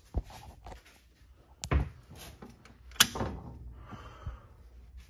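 A few sharp knocks and clicks of handling, the loudest a snap about three seconds in, with a heavier knock just before it and a short rustle after.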